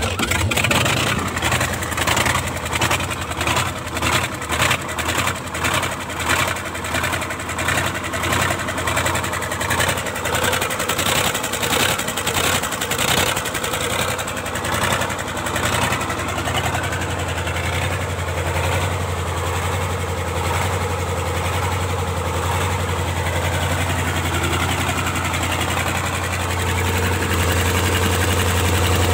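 YaMZ-238 V8 diesel engine running just after starting: the beat is uneven and pulsing at first, then settles to a steady idle about halfway through.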